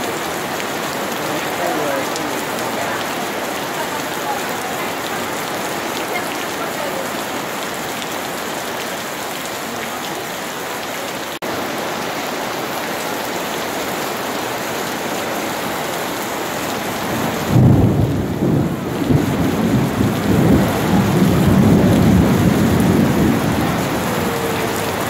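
Heavy rain falling steadily on paving, tables and harbour water. About two-thirds of the way through, a long rolling rumble of thunder sets in and keeps going under the rain.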